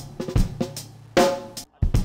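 Background music driven by a drum kit, with steady kick and snare hits over a bass line and a brief drop-out shortly before the end.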